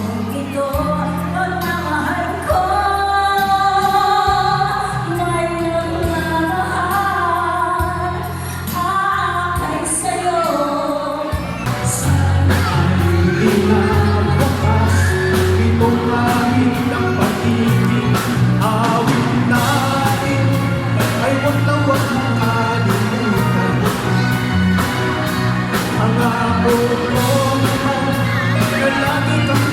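Live singing with band accompaniment: held vocal lines over a sustained bass, then about twelve seconds in a steady drum beat comes in under the voice.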